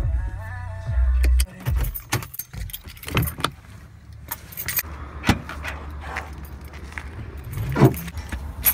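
Keys jangling and clicking, with scattered sharp knocks and rattles. The tail of background music and a low rumble fade out in the first second and a half.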